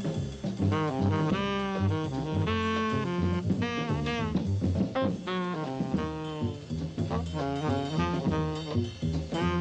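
Jazz instrumental music with horns playing a melody over a bass line.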